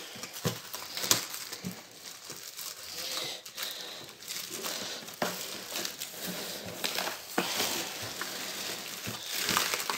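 Black plastic wrapping being pulled and torn off a cardboard parcel box: irregular crinkling and rustling, with scattered sharp crackles and taps as the box is handled.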